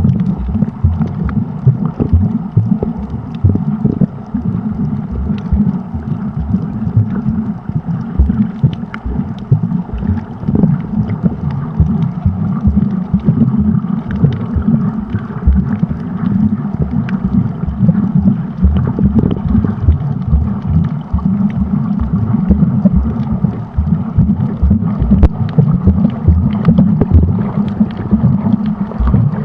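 Muffled underwater noise: a dense low rumble of moving water, with frequent small clicks and crackles throughout.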